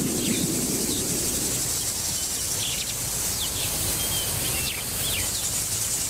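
Outdoor wildlife ambience: a steady, high insect hiss with scattered short bird chirps over a low rumble.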